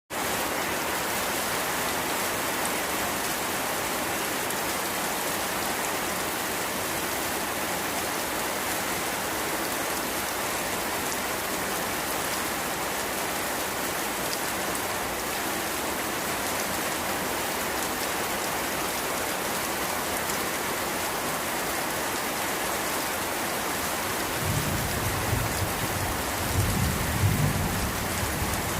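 Steady heavy rain falling, an even hiss with no letup. Near the end a low rumble of thunder rolls in under it.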